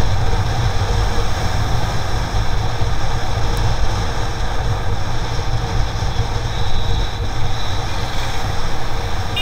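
Steady rush of wind over the microphone of a camera mounted on a moving sport motorcycle's fairing, with the bike's engine running underneath.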